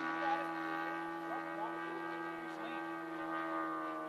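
Radio-controlled model airplane's motor droning steadily in flight, its pitch easing slightly lower near the end.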